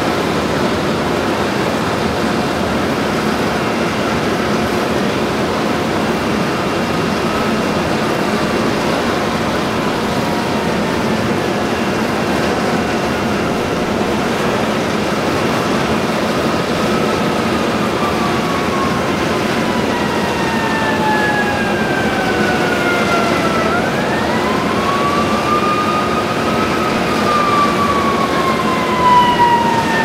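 Industrial exhaust fan blowing with a loud, steady rushing roar. Over it a distant emergency-vehicle siren wails, its pitch falling slowly for many seconds, sweeping sharply up about two-thirds of the way through, then falling again.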